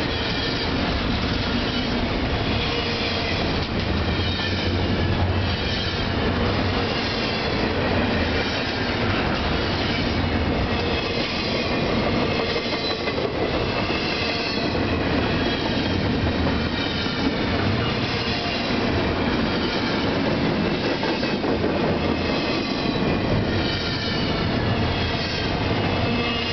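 Norfolk Southern double-stack intermodal freight train's loaded well cars rolling past: a steady rumble of steel wheels on rail with rhythmic clicking and a faint, wavering high wheel squeal.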